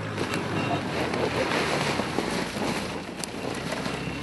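Pickup truck engine running steadily under load as the truck creeps through deep snow, with a rushing crunch of tyres churning the snow that swells and is loudest in the middle.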